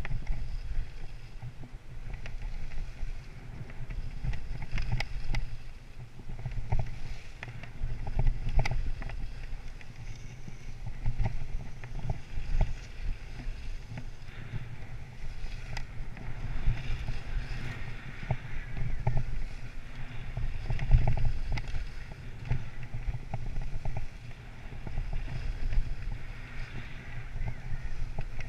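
Wind buffeting the microphone of a skier's camera during a downhill run, a heavy low rumble, with skis scraping and hissing over packed snow, swelling and fading through the turns.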